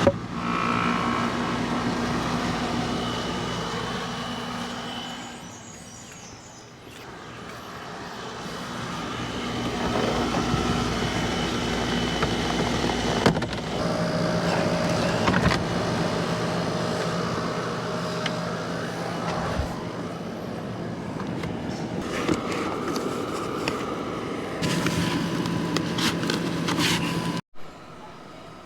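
A steady mechanical hum, changing a little in pitch between segments, with a few clunks and knocks.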